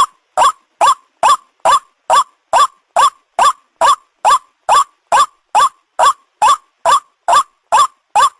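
White-breasted waterhen (ruak-ruak) call: a short rising note repeated evenly about two and a half times a second, played as a looped lure call for hunting.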